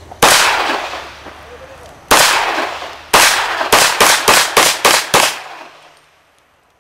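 9x21 semiautomatic pistol firing lead-birdshot cartridges: about nine shots, the first three a second or so apart, then six in quick succession at about three a second, each shot trailing off.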